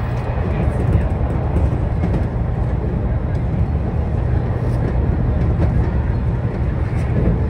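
Electric passenger train running along the line, heard from inside the car: a steady low rumble of wheels on rail with a few faint ticks.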